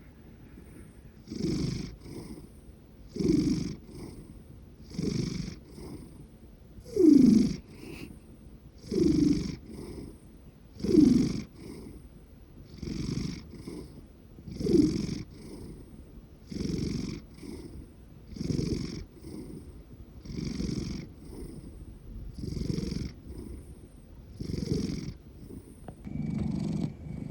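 A large house cat snoring and purring in its sleep, one loud snore with each breath about every two seconds, some of the snores falling in pitch.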